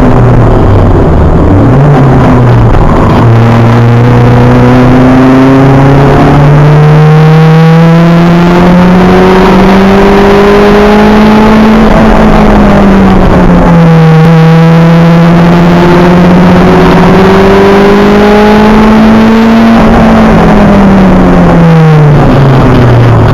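Acura Integra race car's four-cylinder engine heard on board, loud, climbing through the revs under power, dropping once about twelve seconds in as it shifts up, climbing again, then falling steadily near the end as the car slows. Heavy wind and road noise runs beneath it.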